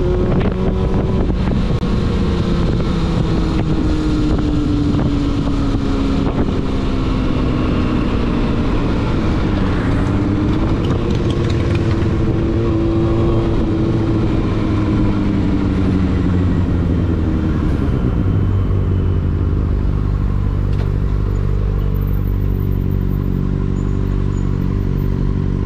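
Yamaha Fazer 600's inline-four engine heard from the rider's seat, its pitch easing down at low speed, dipping and climbing again about ten seconds in, then falling once more. For the last seven seconds or so it settles into a steady idle.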